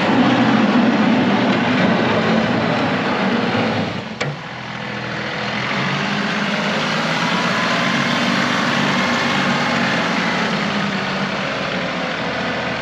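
John Deere 2038R compact tractor's diesel engine running steadily while plowing snow. It drops briefly about four seconds in, with a single sharp click, then picks back up.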